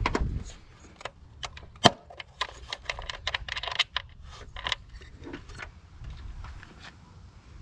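Irregular metallic clicks and clinks of hand tools being worked and handled, most closely bunched a little past the middle.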